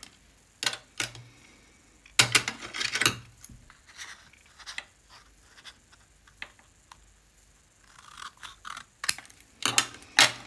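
Paper being cut to length: a series of short, sharp snipping and scraping strokes, with a dense run of them about two seconds in and a few more strong strokes near the end.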